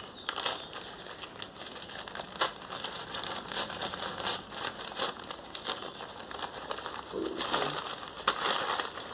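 Hands crinkling and rustling packaging while opening a parcel, with irregular crackles throughout.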